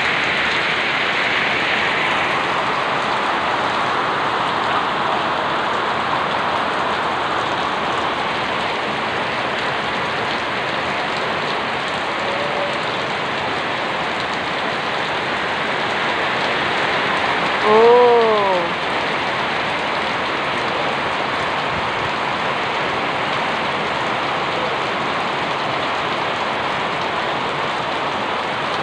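Heavy rain pouring steadily onto a concrete yard, a dense, even hiss. About two-thirds of the way in, a brief call that rises and then falls in pitch sounds over the rain.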